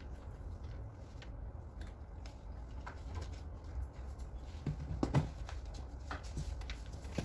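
Faint rustling and light clicks of shoelaces being threaded and pulled through a sneaker's eyelets, with a couple of louder taps about five seconds in, over a steady low hum.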